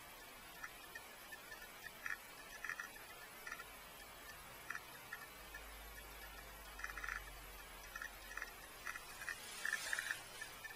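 Geiger counter clicking at irregular, random intervals, a few clicks a second, as it counts radiation. Near the end a paper wipe rustles as it is handled beside the probe.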